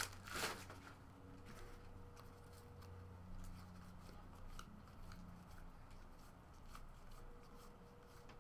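Faint, irregular soft ticks and slides of glossy football trading cards being flipped one by one through a stack in the hands, after a short rustle at the start.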